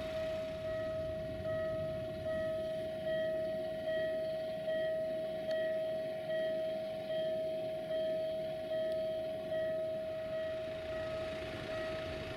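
Railway level-crossing warning bell ringing, a single bell-like ding repeated steadily about every 0.8 seconds, each stroke fading before the next.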